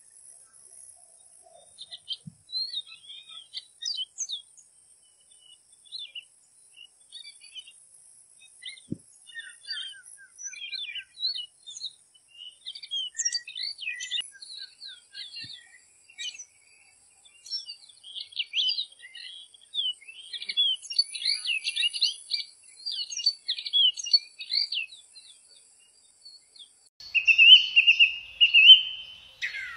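Several small wild birds chirping and trilling in quick short notes, busier in the second half, with a louder buzzy drawn-out call near the end and a faint steady high hiss, likely insects, behind them.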